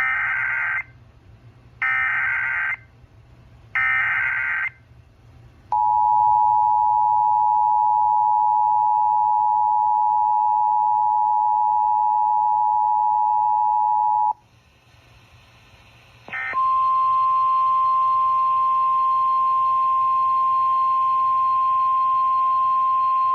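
Emergency Alert System tones: three short buzzing data bursts of the SAME header, then the two-tone attention signal held steady for about eight seconds. After a short pause and a brief blip, a single steady tone, the NOAA Weather Radio 1050 Hz warning alarm, sounds through the rest.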